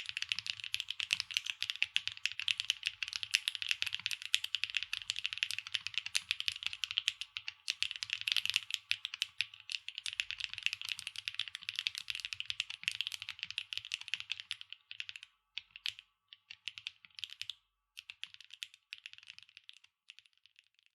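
Typing on a SAAG65 mechanical keyboard with HMX Lucky linear switches, an aluminium plate, O-ring mount and no foam. The keystrokes come in a dense, fast run for about fifteen seconds, then thin out into short bursts of keypresses with brief gaps between them.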